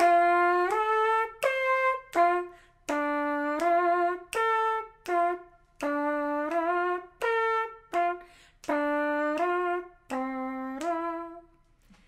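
Mouth trumpet: a woman's voice imitating a trumpet, playing a repeating line of long and short notes, each note started with a crisp "do" attack, in short phrases with brief breaks between them.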